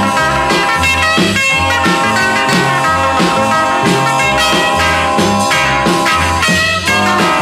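Instrumental rock music with a steady bass line and beat, and no singing.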